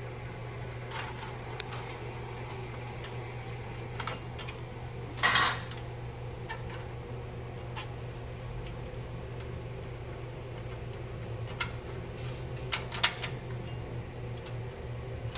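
Scattered clicks and clinks of bolts, nuts and brackets being handled and fitted to an egg-belt transfer plate, with a short rattle about five seconds in, over a steady low hum.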